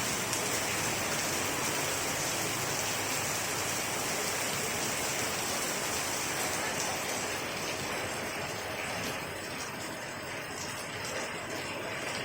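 Steady rain-like hiss of a white-noise sleep sound. About halfway through, the highest part of the hiss thins and turns into a fine speckled patter.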